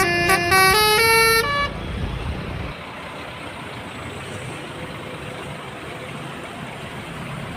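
Bus 'telolet' horn, a Basuri multi-tone air horn, playing a quick tune of stepped notes that cuts off about a second and a half in. A low engine rumble follows and drops away about a second later, leaving steady traffic noise.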